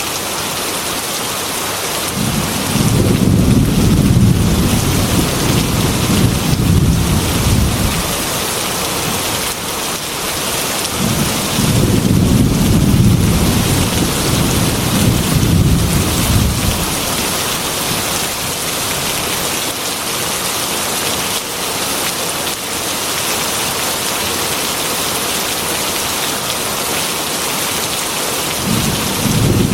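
Heavy rain falling steadily on a glass window, with two long, low rolls of thunder, each lasting several seconds, and a third beginning near the end.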